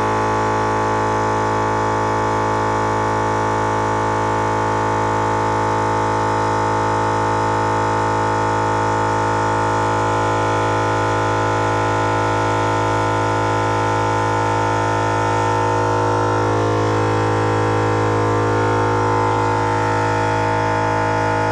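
NAPA electric air compressor running continuously under load, inflating a large tire up from flat: a loud, steady hum at a constant pitch with many overtones.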